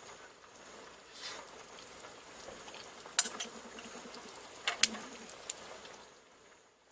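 Cooking at a camp stove: a steady faint hiss with sharp metal clinks of utensils against a pot or dishes, the two loudest about three and five seconds in.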